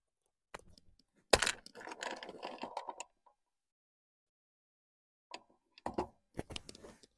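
Metallic clicks and clacks from an SR-25 rifle's action being worked by hand to clear a feeding jam. There is one sharp clack about a second and a half in, followed by a second or so of rattling, and a run of clicks near the end.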